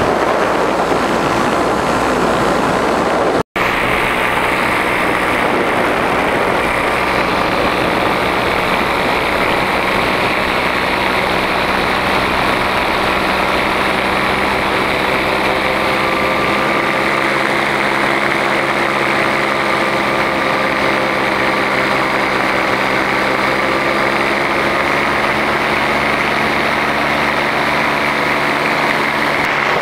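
Powered paraglider's engine and propeller running steadily in flight, with its pitch wavering slowly. Wind noise on the microphone is heavier for the first few seconds, and the sound drops out for an instant about three seconds in.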